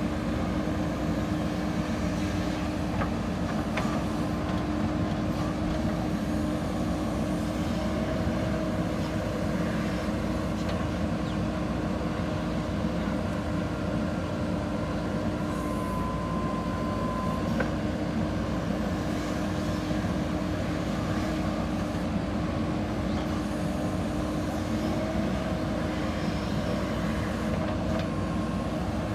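JCB 3DX backhoe loader's diesel engine running steadily under work, with brief higher whines now and then and a few light knocks.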